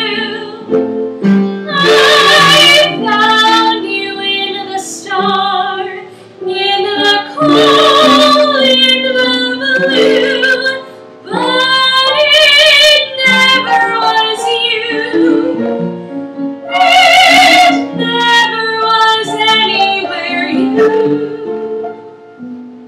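A young woman singing a musical-theatre song over instrumental accompaniment. She sings in long phrases with held notes carrying a wide vibrato, several of them high and loud.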